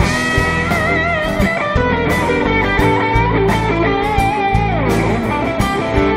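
Live pop-rock band playing an instrumental passage between vocal lines: strummed acoustic guitars, bass and a steady drum beat under a lead melody with vibrato, which slides down in pitch a little past the middle.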